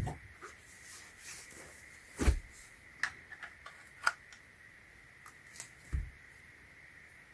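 Handling noise from fitting rechargeable AAA batteries to a USB charging cable: a cluster of light plastic clicks about three to four seconds in, and a few soft thumps about two seconds in and near six seconds.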